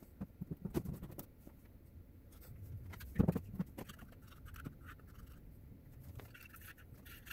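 Light metal clicks and taps of bolts being started by hand into a V6 engine's front timing cover, with one louder thump about three seconds in.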